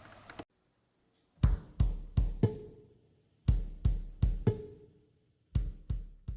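Short drum-kit pattern: three groups of about four bass-drum and snare hits, each group about two seconds apart with dead silence between, over a faint held note.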